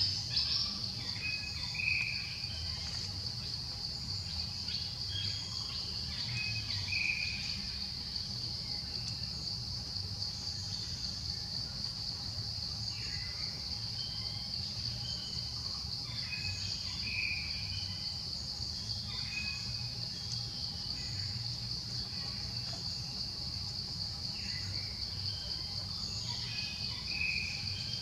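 Steady, high-pitched drone of an insect chorus, with a bird giving short chirps every few seconds and a low steady rumble underneath.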